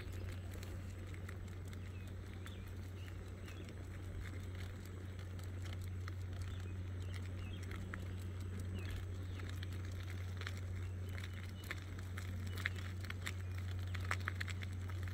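Footsteps of a person and a small dog walking on asphalt: scattered light ticks and taps that grow busier near the end, over a steady low hum.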